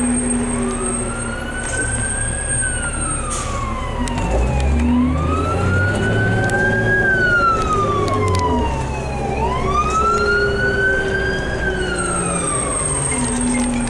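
An emergency vehicle's wail siren, its pitch rising and falling about every four and a half seconds, three cycles in all, heard from inside a city bus over the low hum of the bus's engine.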